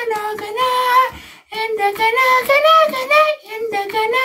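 A high-pitched voice singing a melody in held, wavering notes, in phrases broken by two short pauses.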